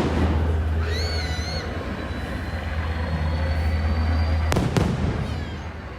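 Fireworks bursting: a loud bang at the start, then two more bangs about half a second apart some four and a half seconds in. A short warbling whistle comes about a second in, over a steady low rumble.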